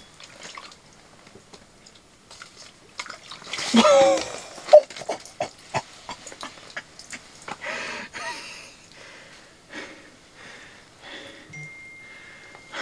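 Burbot being landed through an ice-fishing hole: water splashing and scattered knocks and clicks of handling, with a short strained vocal grunt about four seconds in.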